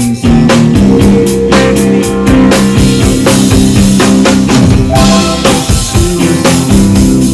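Live rock band playing a song at full volume: drum kit, electric guitar, electric keyboards and an electric cello played as bass, with the drums keeping a steady beat over held low notes.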